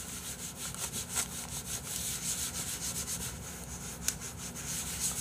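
A tissue scrubbed hard back and forth against a hard surface, in quick repeated strokes, wiping off a spilled sauce stain.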